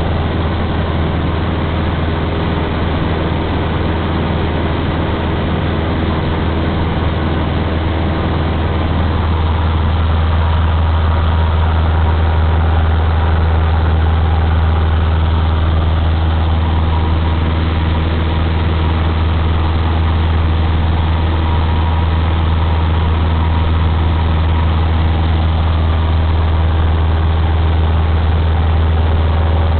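Cessna 152's four-cylinder Lycoming engine and propeller droning steadily in flight, heard inside the cabin; it gets a little louder about a third of the way in.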